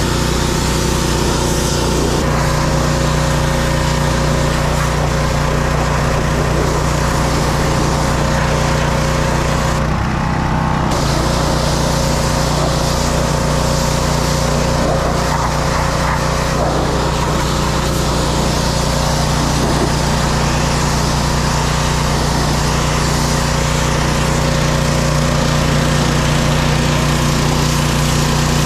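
Gas-engine pressure washer running steadily under load, with the hiss of its high-pressure water jet spraying onto wooden deck stairs. The spray briefly drops out about ten seconds in, then resumes.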